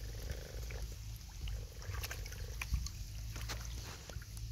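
Muddy shallow water sloshing and splashing with small clicks as hands and feet grope through it for fish, over a low rumble. A faint steady hum comes twice, in the first second and again about a second and a half in.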